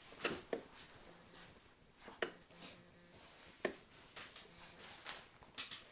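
Hard plastic toy parts knocking and clicking together as they are handled and fitted, a handful of separate sharp taps spread out with pauses between.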